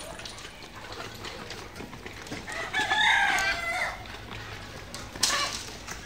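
Rooster crowing once, about halfway through, in one long call of about a second and a half, over faint chicken clucking. A short, sharp sound follows about a second later.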